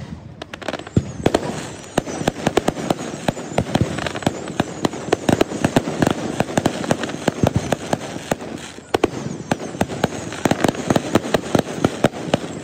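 Fireworks going off in a dense, rapid string of sharp bangs and crackles, many a second, with a brief lull about two-thirds of the way through.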